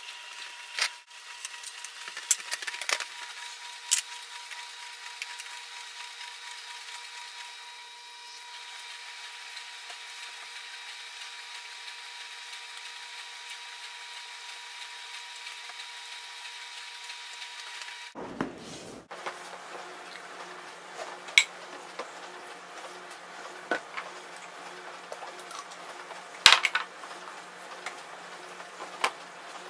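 Light kitchen handling sounds: scattered clicks and knocks of food and utensils being worked on a counter, over a steady hum.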